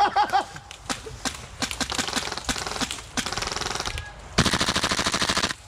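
Airsoft rifle fire: scattered single shots and a short rapid burst, then a louder full-auto burst lasting about a second that stops sharply near the end.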